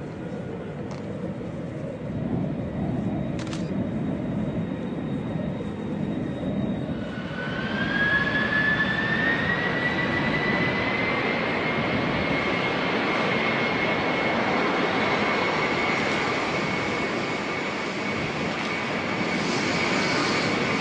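Jet engines of an Airbus A300-600ST Beluga, a low rumble at first. About seven seconds in, a whine rises in pitch and then holds steady as the engines spool up and run on at high power, as when takeoff thrust is set.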